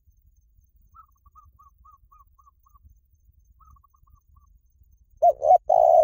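Spotted dove cooing: two quick low coos about five seconds in, then a longer falling coo at the end. Before it, a faint, quicker series of short higher notes sounds twice in the background.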